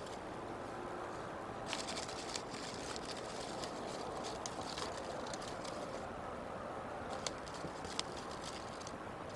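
Crackling and rustling of sticks and dry nest material as bald eagles work the nest, in a run of sharp clicks for a few seconds and then two more single clicks near the end, over a steady background hiss.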